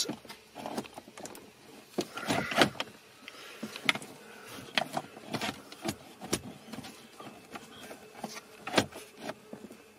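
BMW factory radio head unit being slid and pushed into its slot in a BMW E36 dashboard: irregular scrapes, knocks and clicks of its casing against the mounting cage and trim.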